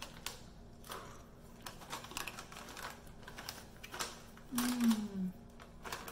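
Crunchy corn chips being chewed: irregular crisp crunches, with a foil snack bag crinkling as it is handled. About four and a half seconds in, a short hummed "mm" that falls in pitch.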